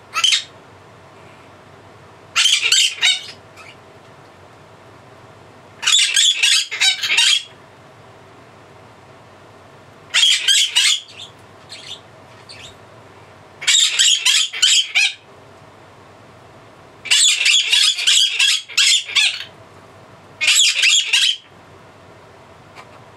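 Blue-crowned conure shrieking loudly in seven bouts of rapid-fire calls, each bout lasting one to two seconds, with a few seconds' pause between them.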